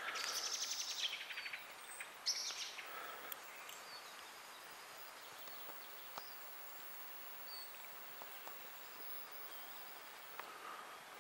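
Songbirds singing faintly: a rapid high trill at the start, a short burst about two seconds in, then scattered brief chirps over a quiet background hiss.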